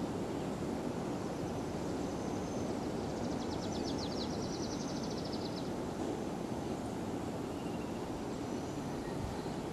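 Steady outdoor ambient noise, an even rush with no distinct events. About three seconds in, a brief high trill of rapid ticks lasts for two to three seconds.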